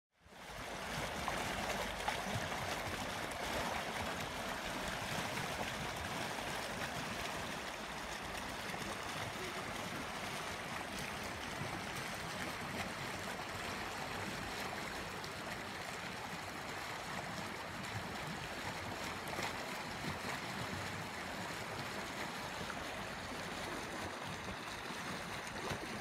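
Azusa River flowing, a steady rush of mountain water over its gravel bed, fading in at the start.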